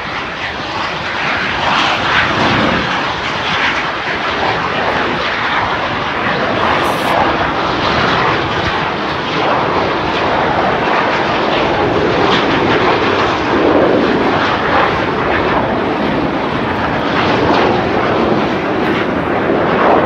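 Jet engines of Red Arrows BAE Hawk display jets flying a low pass over the airfield: a loud, continuous jet noise that swells and eases in waves.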